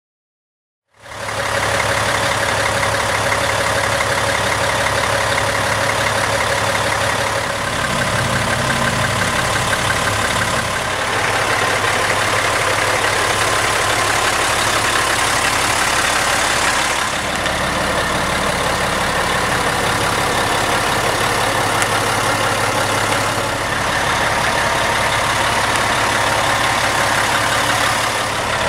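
2002 International 8100 day cab's diesel engine idling steadily, starting about a second in; its tone shifts slightly a few times.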